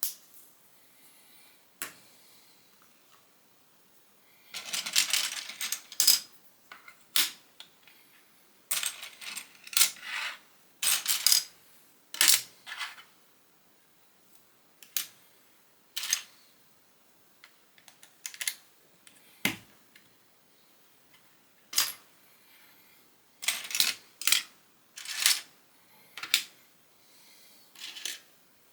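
Plastic Lego pieces being handled and snapped together: irregular sharp clicks, with a few short rattling bursts as small pieces are stirred and picked through.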